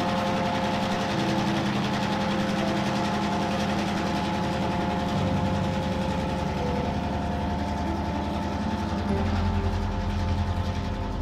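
Diesel switcher locomotive running along the track, its engine giving a loud, steady drone; a deeper rumble comes in about nine seconds in.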